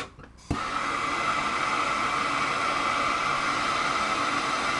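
MAP gas torch burning with a steady hiss. It goes out at the start, then relights with a sharp click about half a second in, and burns steadily until it is shut off at the end.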